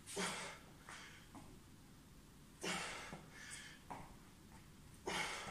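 A man breathing hard during a set of back lunges: three short, forceful breaths about two and a half seconds apart, one with each lunge, with fainter breaths in between.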